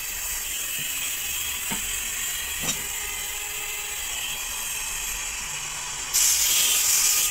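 Hose-fed gas torch flame hissing steadily on a lead battery terminal post, with a couple of light knocks. A little after six seconds in, the hiss suddenly gets louder as the flame is played straight onto the post.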